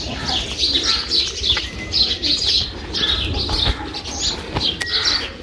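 Small birds chirping busily, many short repeated calls, over a low steady rumble.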